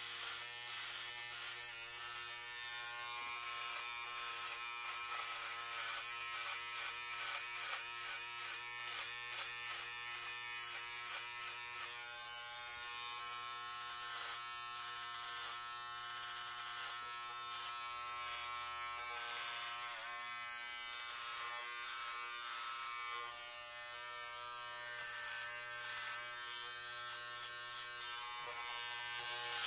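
Electric hair clippers running with a steady buzz while cutting hair.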